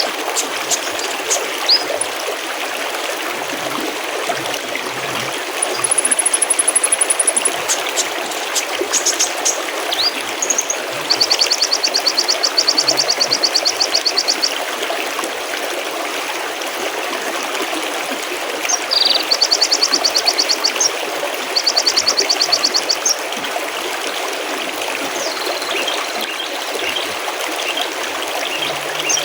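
Mountain stream babbling steadily over rocks, with small songbirds calling over it: several fast, even high trills lasting one to three seconds each, plus scattered short chirps.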